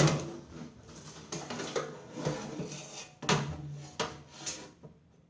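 Irregular knocks, clacks and scraping of hard objects being handled and set down, loudest right at the start and dying away near the end.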